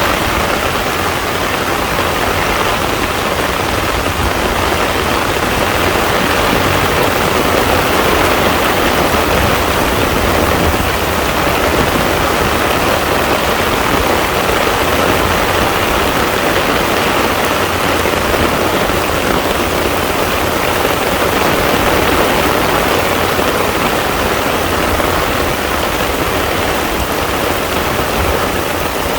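Heavy rain falling steadily onto a pond, a dense, even hiss of drops on the water.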